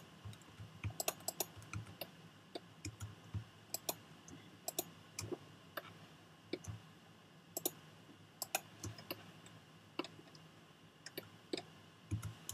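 Irregular clicks of a computer mouse and keyboard being worked, a few a second and sometimes in quick pairs, over a faint steady hum.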